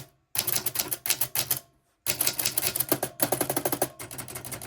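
We R Memory Keepers retro manual typewriter being typed on: rapid clacking of type bars striking the platen in two quick runs, with a short break about two seconds in.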